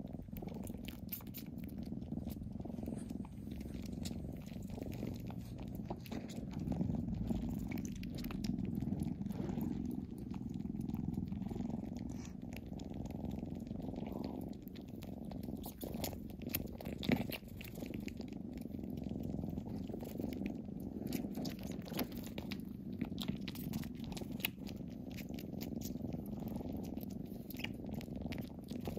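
Kittens purring steadily, close up, a continuous low rumble with small clicks scattered through it.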